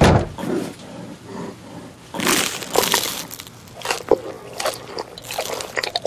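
Brown bear breaking off and chewing honeycomb: a sharp knock at the start, then irregular crunching, wet bites.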